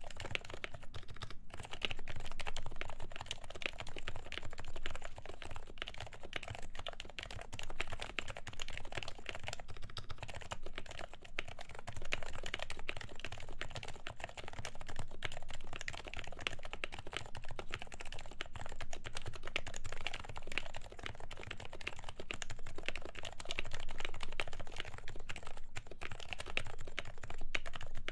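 Continuous fast typing on a Happy Hacking Keyboard Professional with 45 g Topre electro-capacitive switches, lubed and fitted with silencing rings, giving a soft, damped keystroke sound.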